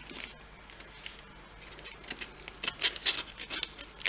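A small blade cutting and scraping through clear packing tape and brown wrapping paper on a parcel. A few faint scratches at first, then a quick run of rasping strokes in the second half.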